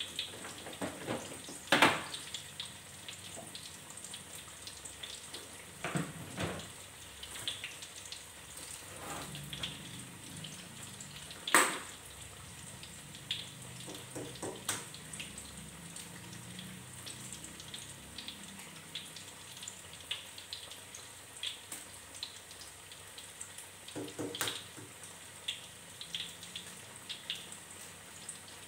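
Corn fritter frying in hot oil in a steel wok: a steady sizzle with scattered crackles and a few louder sharp pops.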